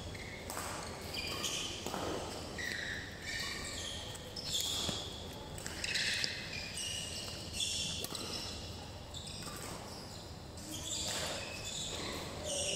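Badminton play on an indoor court: many short, irregular shoe squeaks on the floor and a few sharp racket hits on the shuttlecock.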